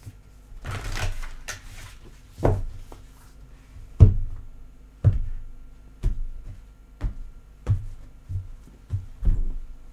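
Tarot cards shuffled by hand: a brief rustle of cards about a second in, then a run of sharp thuds roughly once a second as the deck is worked.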